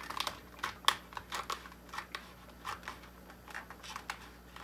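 Scissors snipping through a sheet of heat-transfer vinyl, a quick irregular run of short, crisp cuts.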